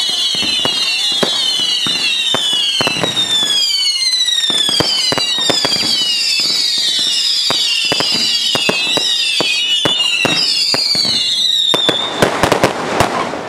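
Fireworks going off: many high whistles overlapping, each falling in pitch, over frequent sharp bangs. Near the end the whistling stops and a quick run of loud cracks follows.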